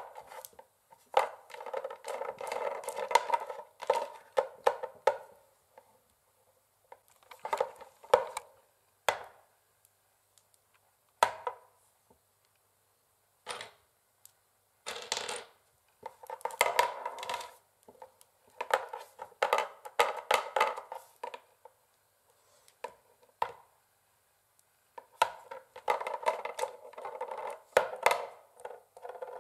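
Long fingernails tapping quickly on a wooden chessboard, in runs of rapid clicking a second or a few seconds long with short silent pauses between them.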